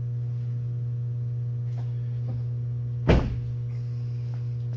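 Steady low hum with one heavy thump about three seconds in.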